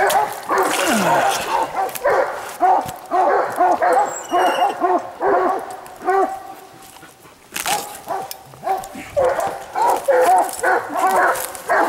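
Coonhounds barking in a fast, steady run of short barks, a few a second, easing off briefly a little past the middle and then starting up again.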